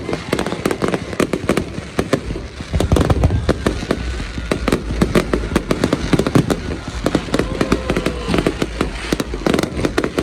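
Fireworks going off in rapid succession: dense crackling and popping, with a deep boom about three seconds in.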